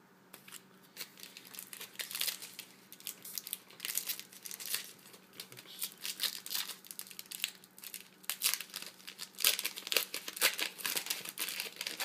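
Foil wrapper of a 2012 Bowman Platinum trading card pack being torn open and crinkled by hand: a run of irregular crackling rustles, loudest in the last few seconds.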